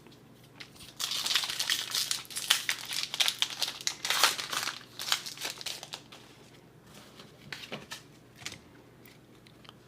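Foil wrapper of a Pokémon trading card booster pack crinkling as it is torn open, busy for about five seconds. It then gives way to a few light clicks and rustles as the cards are handled.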